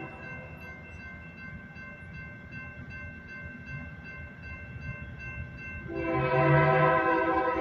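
A railroad crossing bell rings steadily at a lowered-gate crossing. About six seconds in, the horn of an approaching Union Pacific freight train's lead locomotive, a GE AC44CW, sounds loudly as a steady chord and keeps blowing.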